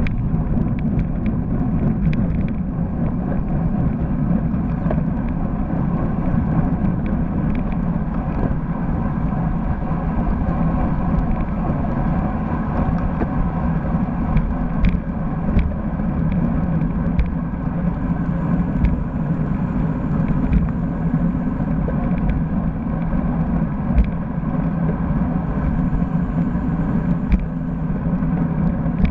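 Wind rumbling steadily on the microphone of a bike-mounted camera on a road bike riding at speed in a group, with road and tyre noise underneath. A few sharp clicks and knocks stand out, the clearest about halfway through and again near the end.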